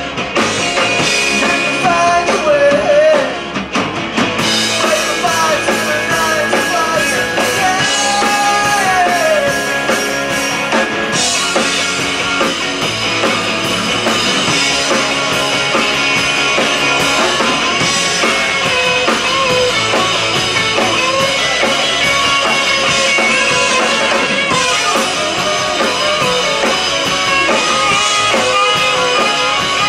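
A rock band playing live, with drum kit and a melodic line that bends up and down in the first ten seconds or so.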